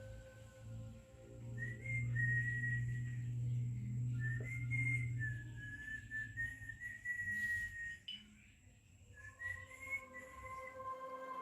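Quiet background music: a whistled melody in short wavering phrases over a low sustained tone, with a brief pause about two-thirds of the way through.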